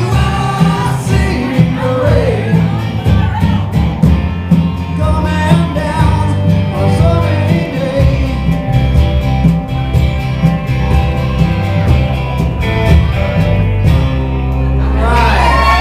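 Live rock band with electric guitars, bass, drums and vocals playing the closing bars of a song. The drums stop about two seconds before the end on a held final chord, and the audience starts whooping and cheering just as it rings out.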